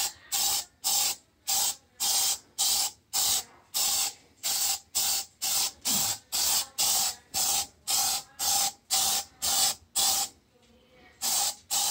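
Kilz aerosol primer can spraying in short hissing bursts, about two a second, with a pause about ten seconds in; each burst carries a faint whistle. The primer is being sprayed back and forth in quick passes to feather it over a ceiling stain.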